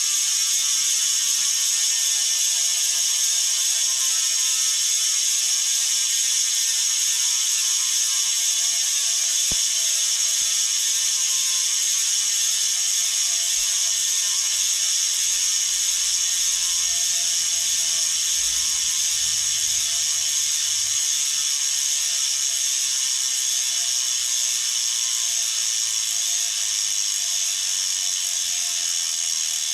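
Bontrager Aeolus Pro 3V wheel's DT Swiss star-ratchet freehub buzzing as the wheel freewheels: a fast, continuous ratchet clicking whose rate slowly drops as the wheel spins down.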